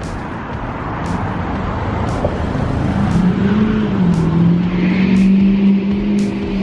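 Car driving, with steady road and engine noise. A steady low hum sets in about three seconds in and holds.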